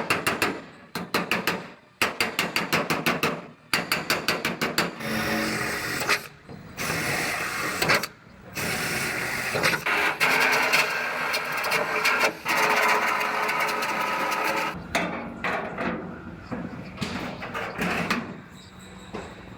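Power tools working the steel bedside of a Ford F-250 Super Duty during rust repair: short bursts of rapid rattling strokes in the first five seconds, then a longer stretch of steady rough noise with a few short breaks.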